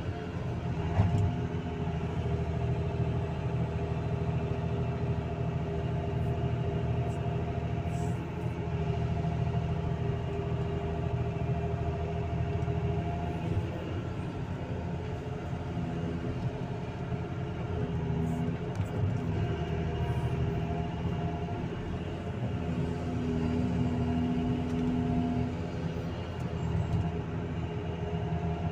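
Excavator's diesel engine and hydraulics running steadily under load as the bucket digs, lifts and swings, with a single sharp knock about a second in.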